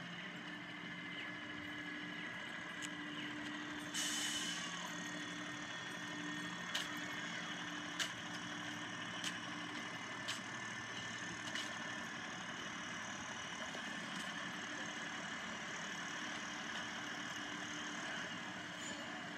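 City transit bus engine idling with a steady low hum, a short burst of air hiss from the brakes about four seconds in, and a run of sharp clicks roughly every second and a bit in the middle.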